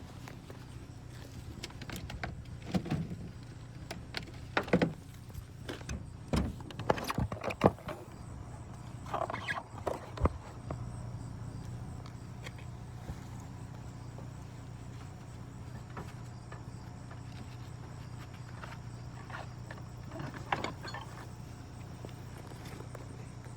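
Steady low hum of an idling vehicle, with a run of sharp knocks and clanks in the first ten seconds and a few more near 20 s, as gear is handled.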